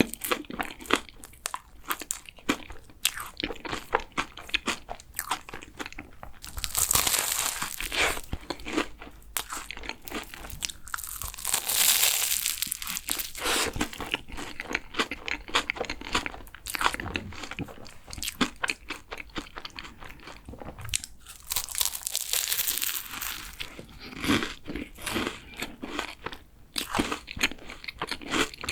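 Biting and chewing a fresh cream chocolate croissant, the flaky pastry crunching and crackling, with louder crackly stretches several times.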